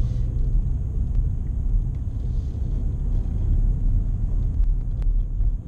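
Steady low rumble of a moving car heard from inside its cabin: engine and road noise while driving.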